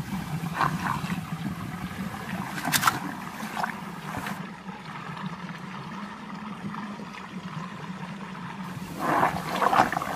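Water swirling and trickling steadily in a whirlpool, with a few short splashes or knocks, the loudest cluster about nine to ten seconds in.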